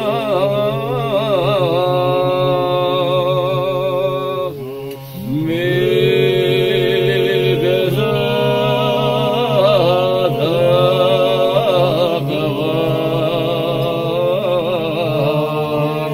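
Men singing a Georgian folk song in parts: a lead voice carries a wavering, ornamented melody over a steady low drone from the other voices. About five seconds in the singing briefly drops away, then the voices swell back in.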